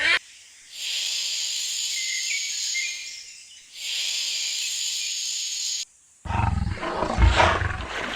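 A big cat's calls: two long, high, breathy hisses of about two seconds each, then from about six seconds in a louder, deep, rough roar.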